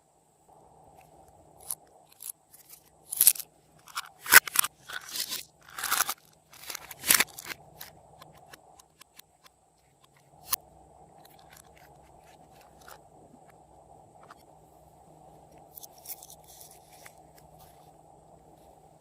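Slime being squeezed and worked by hand, giving a dense run of sharp crackles and pops for several seconds, then a single click and a few faint crackles later on.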